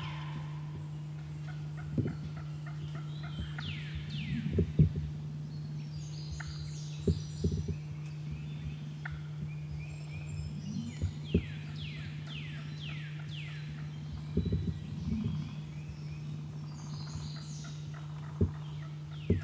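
An eastern wild turkey gobbler gobbles in several bursts, with short low thumps in between, over a steady low hum.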